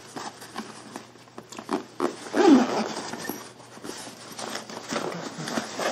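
A black fabric briefcase being handled: fabric rustling with small clicks and knocks. About two and a half seconds in comes a brief sound that falls in pitch, the loudest moment.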